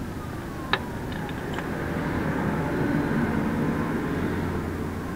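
Low engine hum of a passing vehicle, swelling to its loudest about three seconds in and then easing, with a few light clicks as the transmission's linear solenoid is lifted off its housing.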